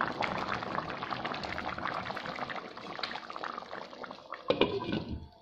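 Potato and green-pepper stew in tomato sauce bubbling and crackling as it simmers in a pan, with a short louder sound near the end as a lid is put over the pan.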